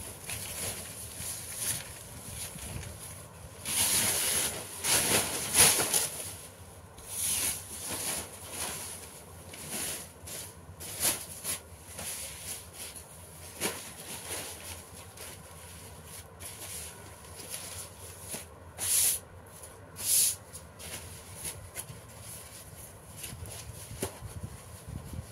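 Sheets of paper being handled and folded: irregular rustling and crinkling swishes, loudest about four to six seconds in and again around nineteen to twenty seconds.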